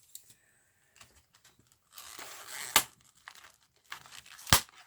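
Packaging being torn and crinkled by hand. A rustle about two seconds in ends in a sharp snap, and a second snap comes near the end.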